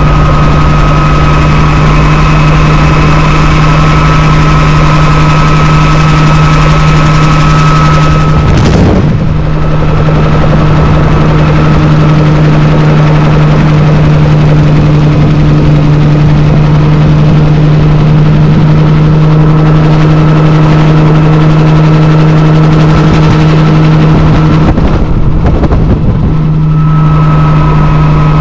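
Bell 47 helicopter in flight, heard from inside the cockpit: its piston engine and rotor make a loud, steady drone. The drone wavers briefly about nine seconds in and again near the end.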